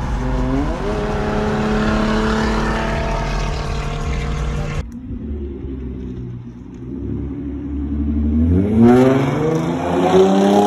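Hyundai Genesis Coupe engine and exhaust revving up under hard acceleration, the pitch climbing and then holding. It cuts off abruptly about five seconds in, and after a quieter stretch a second loud rev-up rises from about eight seconds in.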